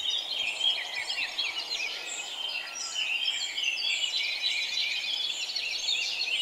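A chorus of many small birds chirping and twittering at once, the calls overlapping without a break, over a faint steady background hiss.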